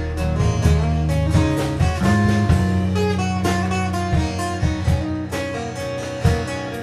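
Live band music: strummed acoustic guitars over an electric bass line, with a steady rhythm.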